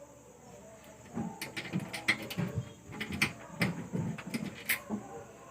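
Irregular clicking and knocking of gas stove parts being handled and fitted back together, starting about a second in.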